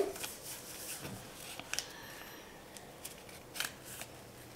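Sheet of paper being folded and creased by hand: soft rustles and short scrapes as fingers press the folds flat, with two sharper strokes near the middle and about three and a half seconds in.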